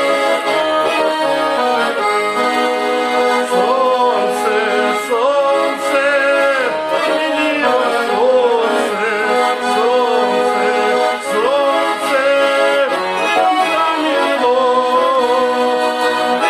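Accordion music: held chords under a wavering melody line.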